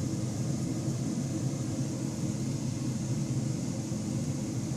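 Steady low mechanical hum over a faint hiss, even throughout, with no distinct clicks or handling noises.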